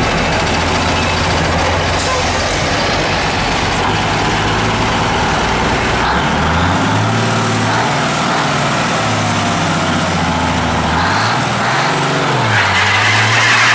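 Kenworth truck's Cummins 290 diesel idling steadily, then revved twice, the pitch rising and falling each time. Near the end it gets louder, with a rushing hiss.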